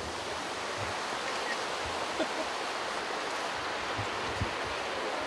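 Steady rushing of a mountain river, an even unbroken hiss of flowing water.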